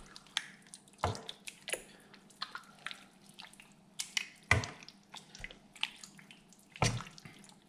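Wooden spoon stirring a thick zucchini and tomato salsa in a stainless steel pot: irregular wet squelches and plops, with a few louder splats about a second in, halfway through and near the end.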